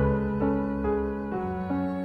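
Slow, sad orchestral music, with sustained string notes shifting to a new chord about every half second.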